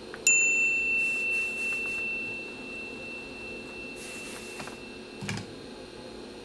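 A single bell-like chime rings out about a third of a second in: its highest notes fade within a second, while one clear tone rings on and slowly dies away over about five seconds. A short click with a low thud comes near the end, over a steady background hiss.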